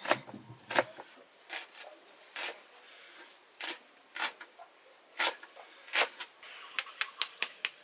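Kitchen utensils scraping and clicking against dishes: about a dozen short, irregular scrapes, with a quicker run of clicks near the end.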